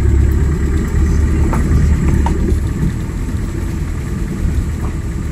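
A vehicle running along a rough road, a steady low engine and road rumble that eases slightly about halfway through, with a few faint clicks.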